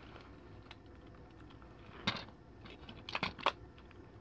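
A few sharp clicks and knocks of the animatronic macaw's plastic housing being handled: one about two seconds in, then a quick cluster of clicks about a second later.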